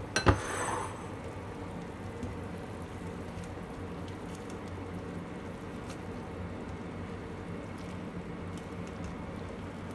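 A pot of noodle soup boiling on the stove: a steady bubbling hiss over a low steady hum. Just after the start, a single sharp clink of metal tongs against a bowl.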